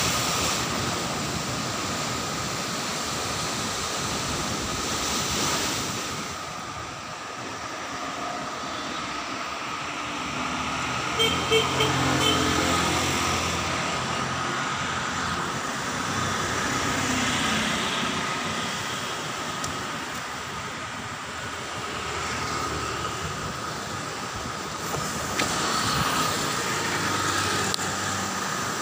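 Steady roar of heavy surf breaking against a seawall, blended with road traffic noise; around the middle a passing motor vehicle adds a rising and fading engine hum.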